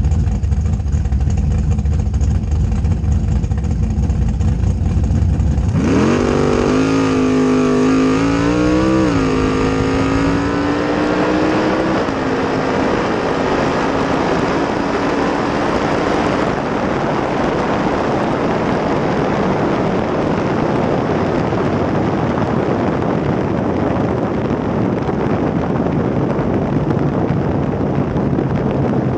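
Drag car engine idling low at the start line, then launching about six seconds in: the engine goes to full throttle, its pitch climbing, dipping once at a gear change and climbing again. About six seconds after the launch the throttle lifts and the note fades, leaving a steady rush of wind and tyres as the car slows down the track.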